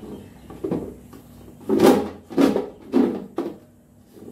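Clear plastic vegetable box being tilted and moved on a kitchen counter, with vegetables shifting inside: a run of about five knocks and scrapes, the loudest about two seconds in.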